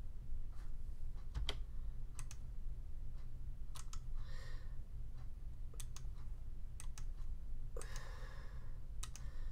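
Computer mouse button clicking at irregular intervals, roughly once a second and sometimes in quick pairs, as points are placed one by one with a manual punch digitizing tool.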